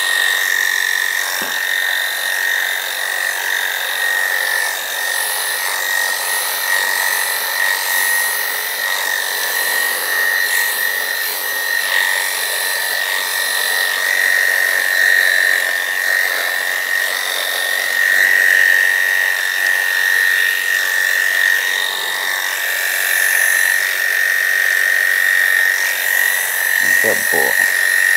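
Electric dog grooming clippers running with a steady high buzz while shaving through a poodle's coat.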